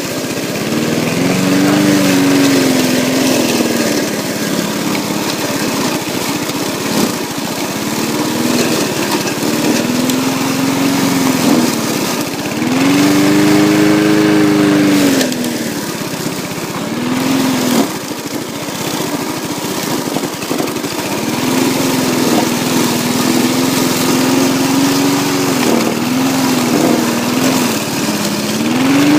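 Lawn mower engine running under load, its pitch repeatedly rising and sagging as it bogs down in thick grass and then recovers. It is running at slowed revs and short of power.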